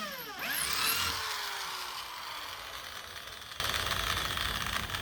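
Power drill motor spinning down after drilling a handle hole through a cabinet door, its whine falling in pitch. It is briefly squeezed up again and left to coast slowly to a stop over about two seconds. From about three and a half seconds in, a steady rushing noise.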